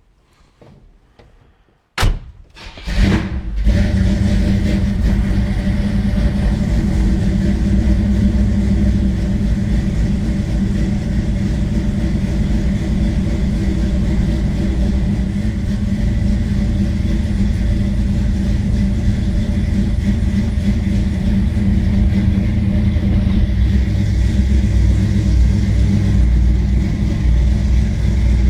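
A 1962 Chevrolet Bel Air's engine cranking briefly about two seconds in, catching and settling into a steady run.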